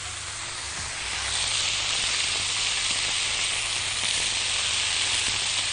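Steak pieces and sliced onions sizzling in a hot frying pan, the sizzle swelling over the first second or so and then holding steady.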